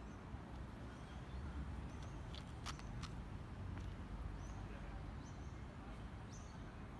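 Faint outdoor ambience: a steady low rumble with a few short, high bird chirps scattered through it and a couple of faint clicks near the middle.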